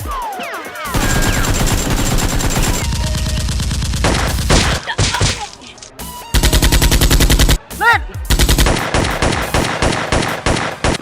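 Bursts of rapid automatic gunfire sound effects, laid over a toy-blaster fight, with a short lull about halfway through.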